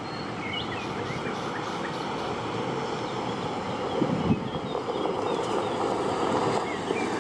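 MAN four-axle dump truck driving over a gravel yard: a steady engine and tyre rumble that grows slowly louder as the truck approaches, with faint bird chirps.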